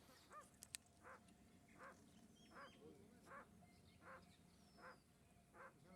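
A bird calling, a short nasal note repeated evenly about every three-quarters of a second, with faint thin falling whistles from other birds above it and a single sharp click under a second in.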